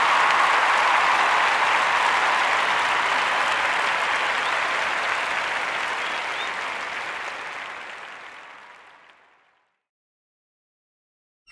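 Crowd applause, steady and then fading away to nothing about nine seconds in.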